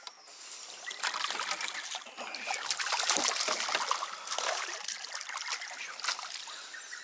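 A hooked black bass splashing at the surface as it is scooped into a landing net, with water pouring off the net; the splashing is loudest about three seconds in.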